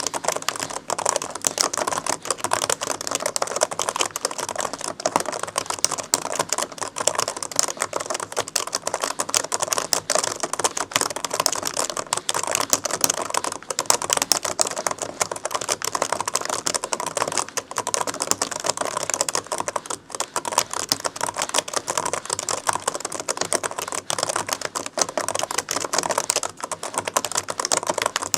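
Fast, continuous typing on an old Sony Vaio laptop keyboard, a dense stream of light key clicks without pause.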